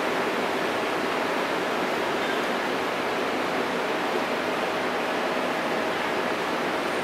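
Induction heating machine running steadily while a part is heated red-hot in its copper coil: an even rushing noise with a faint steady tone underneath that fades out about six seconds in.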